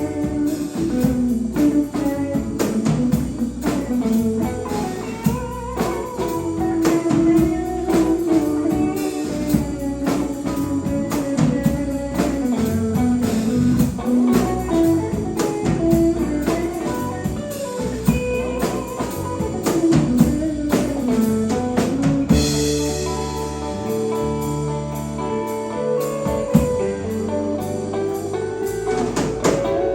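Live band playing an instrumental passage: a guitar leads over bass and drum kit, and the band moves into a new section about three-quarters of the way through.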